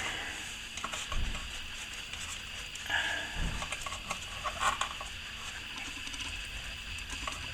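Light scratching, tapping and clicking of small handling noises, in little clusters about a second, three seconds and four and a half seconds in, over a steady faint hiss.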